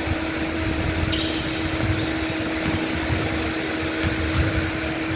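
Indoor basketball court sounds: a ball being dribbled and scattered short squeaks and knocks from play on the hardwood floor, over a steady mechanical hum.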